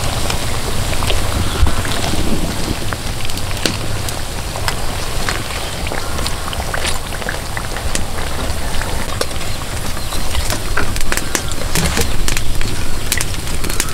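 Soybean batter fritters deep-frying in hot oil: a steady sizzle full of frequent small crackles and pops, over a low rumble.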